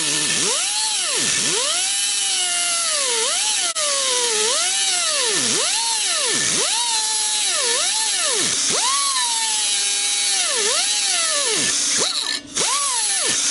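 Blue-Point pneumatic cutoff tool cutting a slot in a steel tube, its high whine dropping sharply in pitch again and again and recovering as the wheel bogs down in the cut. It runs short of power on a small air supply, and the wheel pinches in the slot. It cuts out briefly about twelve seconds in, starts again and stops near the end.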